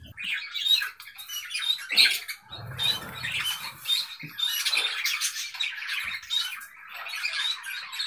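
A budgerigar gripped in a hand, squawking and chattering in rapid harsh calls.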